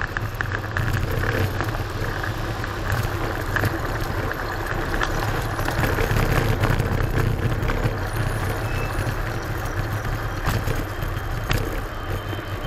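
Steady traffic and road noise with a low rumble, heard from an electric kick scooter on the move.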